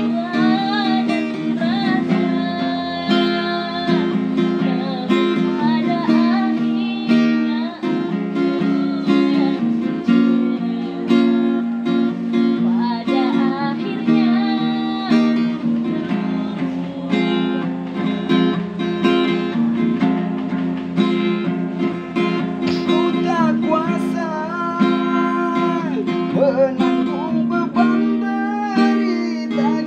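Acoustic guitar strummed and picked, with a voice singing along.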